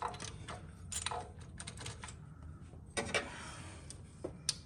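Irregular light metallic clicks and knocks as a spring-loaded rocker arm assembly is worked down onto a Honda Accord's cylinder head, with a few sharper knocks about three seconds in and near the end.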